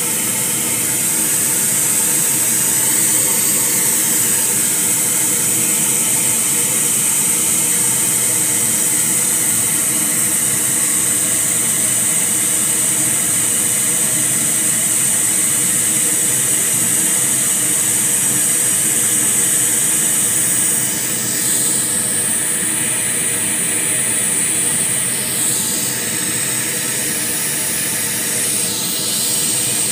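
Steady hiss-like test noise played loud through a newly built loudspeaker cabinet while the system is measured and tuned. Its upper treble drops for a few seconds about two-thirds of the way through, then comes back.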